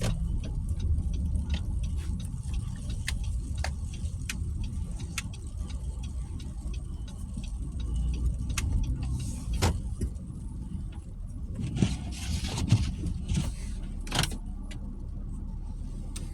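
Car driving on a snow-covered road, heard from inside the cabin: a steady low road and engine rumble with scattered light clicks and rattles, and a few brief swishes in the second half.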